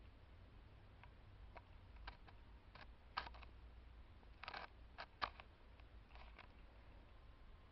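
Pet rats eating chicken: faint, irregular small clicks and crunches of chewing and scrabbling, a few louder ones about three and five seconds in.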